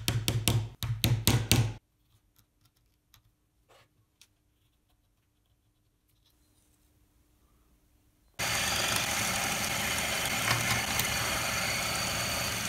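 A quick series of sharp hammer taps on a small piece of wood for the first couple of seconds, then faint ticks while it is marked out. About eight seconds in, a bench drill press starts and runs steadily through the rest.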